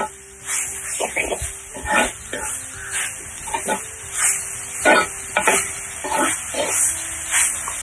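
Coconut-shell ladle stirring and scraping chopped banana stem around an earthenware clay pot, a stroke about every half second to second, over a steady sizzle of the mixture frying.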